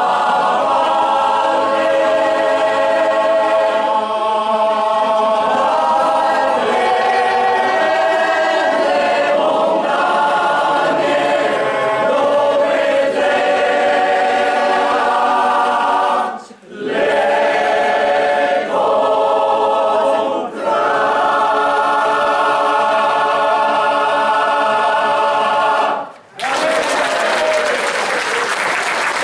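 Large combined folk choir of mostly men's voices singing a cappella, with a short break for breath about two-thirds through. Near the end the singing stops suddenly and the audience breaks into applause.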